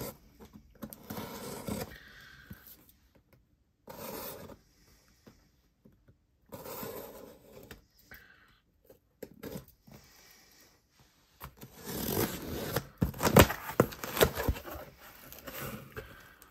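Small blade of a Swiss Army knife cutting open a cardboard shipping box, in several short scraping strokes with pauses between them, the loudest and sharpest scraping near the end.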